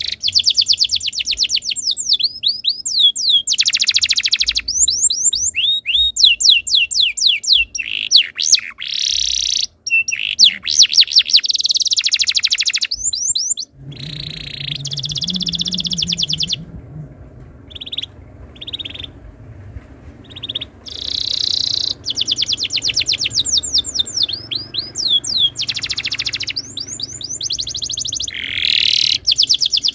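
Domestic canary singing a long, loud song of rapid rolling trills and sweeping whistled notes, broken about halfway through by a short stretch of a few single notes before the trills resume. A faint low hum sits under the song from about halfway in.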